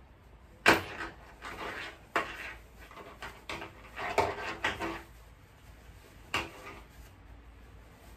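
Quilted fabric with batting rustling and rubbing as it is handled and pushed inside a lining tube. A sharp knock comes about a second in, with a few smaller bumps later.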